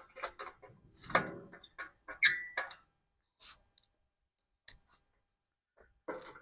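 Bolts and metal parts clinking and rattling as hardware is handled and fitted into a steel pipe: scattered clicks and clanks, with one short metallic ring about two seconds in, a lull, then more rattling near the end.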